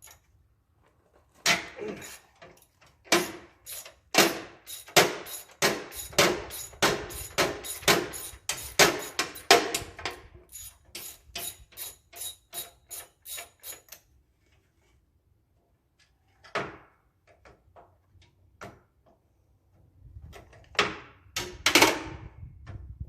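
Rapid run of sharp metallic clicks and taps, speeding up to about four or five a second, for some twelve seconds: hand tools working on a mower bolt. After a pause come a few scattered knocks, the loudest near the end.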